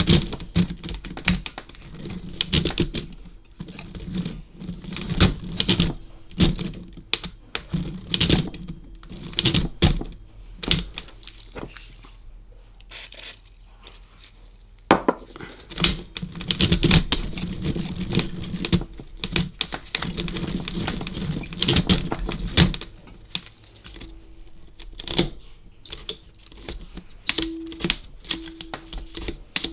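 The mechanism of a Facit C1-13 mechanical calculator being worked again and again, giving a run of irregular clicks and clunks, with a quieter spell near the middle. The mechanism is still stiff and is being freed up after WD-40.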